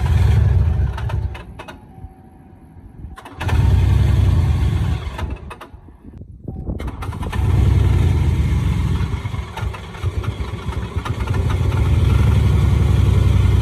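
An old Oldsmobile's engine being cranked on the starter in three tries, with short pauses between. On the last try it keeps going and settles into a steady run near the end.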